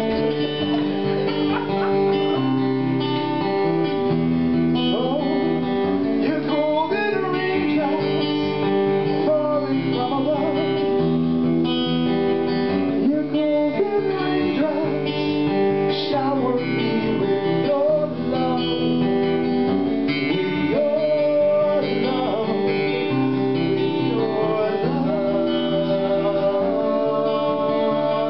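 Acoustic guitar strumming chords, with a voice singing a melody over it.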